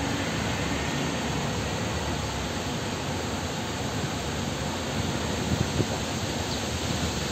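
Steady, even rushing noise, with a few faint soft knocks about five and a half seconds in.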